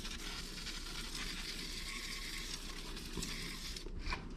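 Aerosol can of penetrating oil spraying in one steady hiss lasting about three and a half seconds, stopping shortly before the end.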